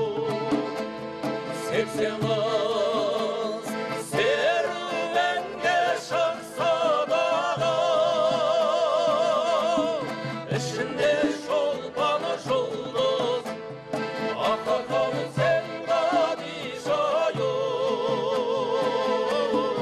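Kazakh folk music: a singer holding long, wavering notes with heavy vibrato over steady instrumental accompaniment.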